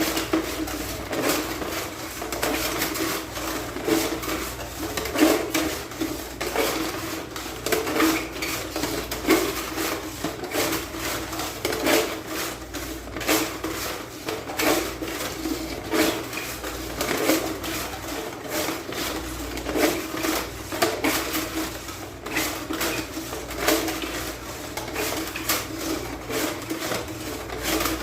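Fish tape being pulled through a wall conduit, with a continuous irregular clatter of clicks and scrapes.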